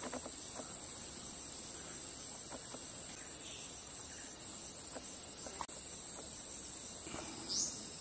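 Steady high-pitched insect chorus of tropical rainforest, with a few faint clicks scattered through it and a short rising bird chirp near the end.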